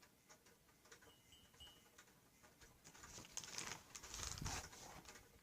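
Faint clicks and taps of handling, then a soft rustling from about three seconds in, as cornstarch is added little by little to shampoo in a cup.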